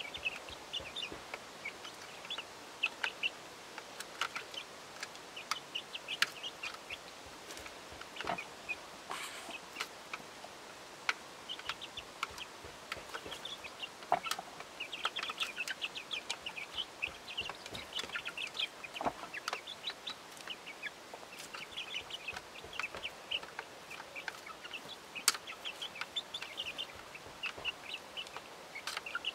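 A small flock of young chickens clucking and making short high chirping calls while they feed, with scattered sharp taps from beaks pecking at the food tray.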